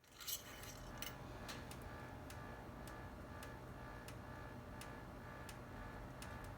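Volvo XC70 2.5T's turbocharged inline-five idling with a low steady hum, overlaid by light irregular ticks about one to two a second: the intermittent abnormal noise being checked on the engine.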